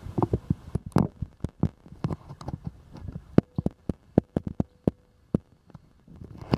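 Irregular taps and clicks of small objects being handled on a table, several a second, with a faint steady tone for a moment about halfway through.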